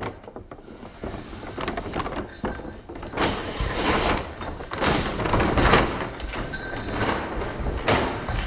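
Paper bag rustling and crinkling in irregular bursts from about three seconds in, as a cat moves about inside it.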